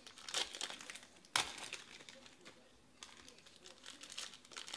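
Foil trading-card pack wrappers crinkling and tearing as packs are ripped open by hand, an irregular crackle with one sudden louder crack about a second and a half in.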